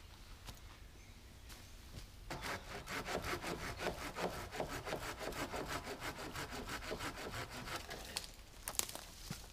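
Hand saw cutting through a wooden branch in quick, rhythmic back-and-forth strokes, about four or five a second, for roughly five seconds. This is followed by a few sharp cracks of wood near the end.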